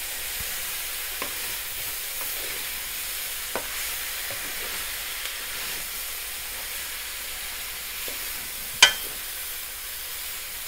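Asparagus, mushrooms, bell peppers and onion sizzling in a metal pan as they are stirred with a wooden spatula. A few light knocks sound, and one sharp, loud knock comes near the end.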